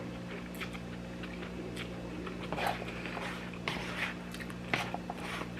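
A person chewing food, with a few soft mouth and chewing sounds over a steady low electrical hum in a small room.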